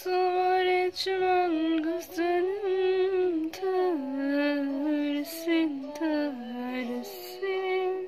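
A woman singing a slow Turkish song in long held notes with a wavering, ornamented line and short breaths between phrases, over a quiet instrumental backing.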